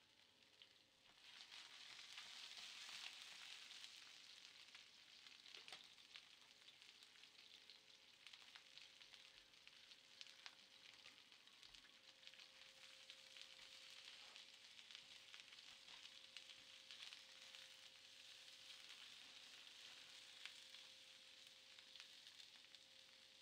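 Near silence: a faint steady hiss with a few soft clicks and a thin, low, steady hum.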